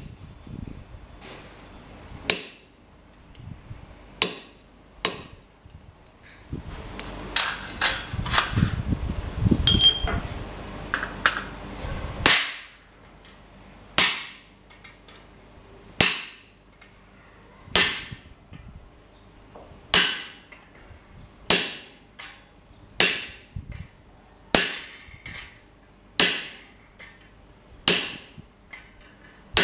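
Hand hammer striking a hot-cut chisel held on a red-hot steel bar on the anvil, splitting the bar's end; sharp ringing metal blows, about one every one and a half to two seconds through the second half. Before the steady strikes come a few scattered clanks and a stretch of rumbling, shuffling noise.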